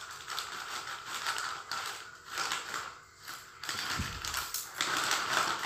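Scissors snipping through the edge of a plastic courier pouch, with the plastic crinkling. There is a soft thump about four seconds in, and the crinkling grows louder near the end.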